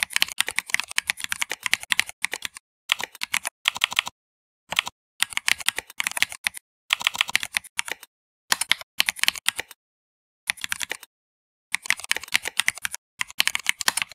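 Typing on a computer keyboard: quick runs of key clicks in bursts of one to two seconds, broken by short pauses.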